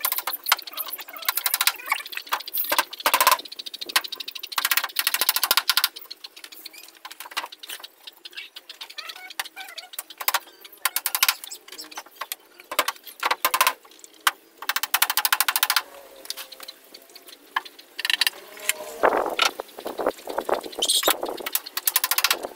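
Hammer blows nailing a teak back panel onto a wooden wardrobe: quick runs of sharp wooden knocks with short pauses between.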